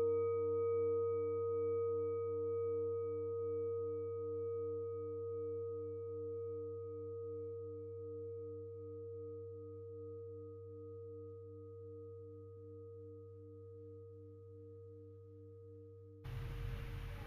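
Singing bowl ringing out after a strike: a long, slowly fading tone with a wavering pulse in it, over a steady low hum. About a second before the end it cuts off abruptly and a different, noisier sound takes over.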